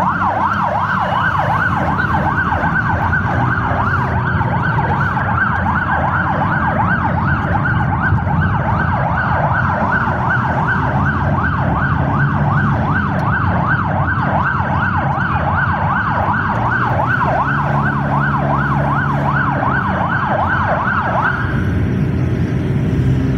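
Vehicle siren in fast yelp mode, rising and falling about three times a second, cutting off suddenly near the end. Underneath is the steady low rumble of a car's engine and road noise.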